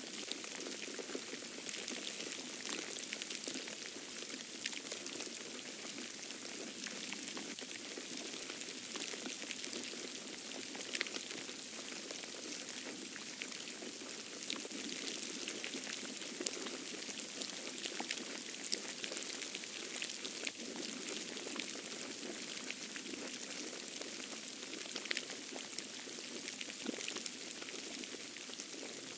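Steady hiss of a snowstorm, with many small scattered ticks of wet snow landing.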